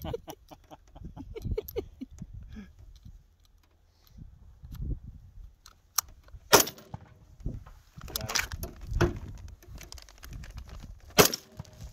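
Gunshots at an outdoor rifle range: a handful of sharp reports, about four of them loud, the loudest about six and a half and eleven seconds in. Fainter clicks of rifle handling come in the first few seconds.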